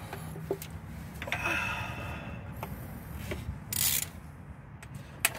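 A ratchet wrench working at engine bolts: scattered metal clicks and scrapes, with a short hissing burst about four seconds in and a sharp click near the end.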